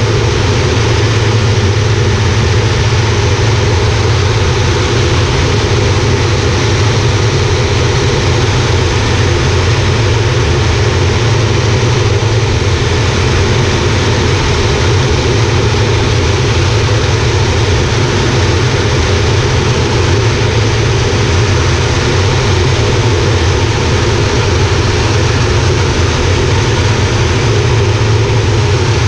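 Air Tractor 402B's PT6A turboprop engine and propeller running steadily in flight, heard from inside the cockpit: a loud, even drone with a strong low hum.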